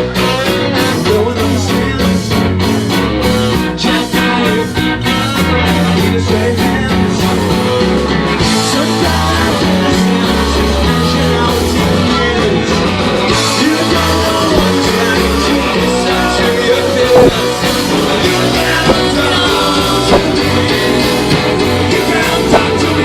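Rock song playing, with sung vocals over guitar and a steady beat.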